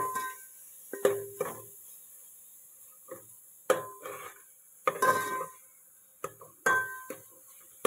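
Metal spoon scraping and knocking against a steel cooking pot while stirring a thick onion-and-spice mixture. The pot rings briefly after each of the irregular knocks.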